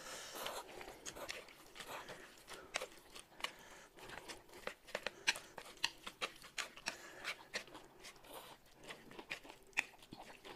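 Close-miked eating sounds at a table: noodles slurped and chewed, with many irregular light clicks of chopsticks on the plates.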